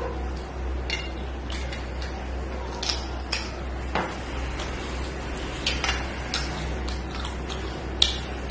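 Fingers scraping and tapping on a stainless steel plate while gathering rice, with mouth-full chewing; scattered short clicks, the sharpest near the end, over a steady low hum.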